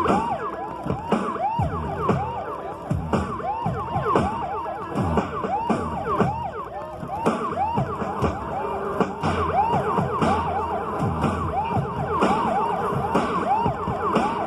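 Synthesizer siren patch played on a Yamaha keyboard: many short rising-and-falling pitch swoops, two or three a second and overlapping, with deeper falling swoops underneath.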